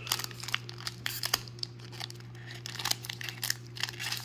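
Foil wrapper of a Topps trading-card pack crinkling and tearing in irregular crackles as fingers pick at its crimped seal, over a steady low hum.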